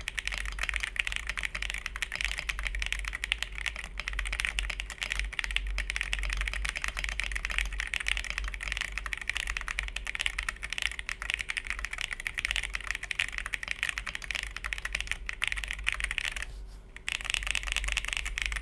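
Fast, continuous typing on a Monsgeek M1W V3 mechanical keyboard with Akko Creamy Blue V3 Pro tactile switches, a dense stream of keystroke clicks. It stops for a brief pause near the end, then resumes.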